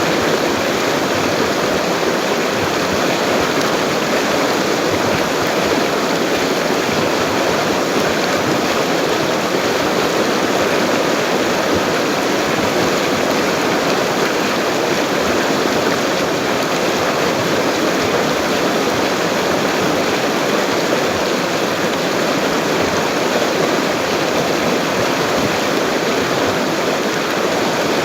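A full-flowing river rushing steadily, an even, unbroken wash of water noise.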